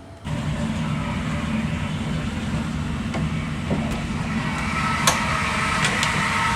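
Steady low rumble of a running road vehicle, starting abruptly just after the start, with a few faint clicks.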